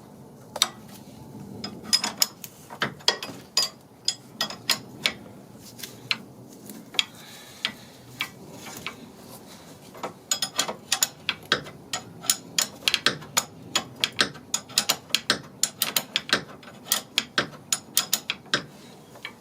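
Hand socket ratchet clicking as an already-loosened stabilizer link nut is backed off. At first the clicks come in scattered short runs, then they turn into a fast, steady run of clicks from about halfway through.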